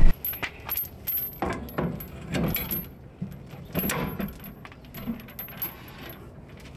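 Small metal parts clinking and jingling in a string of separate light clicks.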